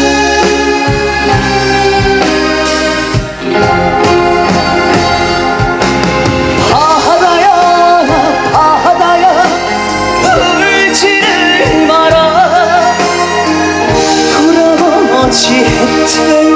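Trot band music: sustained keyboard chords, with a lead melody sung or played with heavy vibrato coming in about six or seven seconds in.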